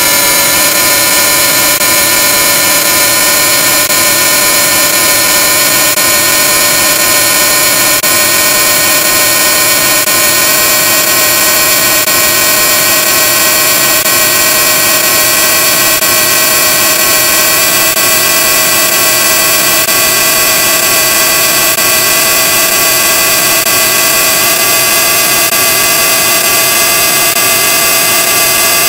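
Heavily distorted, digitally effects-processed audio: a loud, harsh, steady hiss with a stack of tones that slowly rise in pitch throughout.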